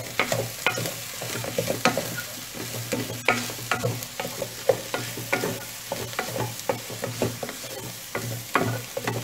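Wooden spoon stirring chopped vegetables and chicken in a metal pot, with irregular scrapes and knocks against the pot, over the sizzle of the mixture sautéing.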